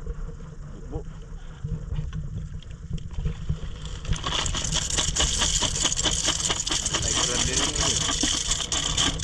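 A mass of small sikad-sikad sea snail shells clattering as they are poured from a basin into a sack. The clatter starts about four seconds in and rattles on densely. A low wind rumble on the microphone runs underneath.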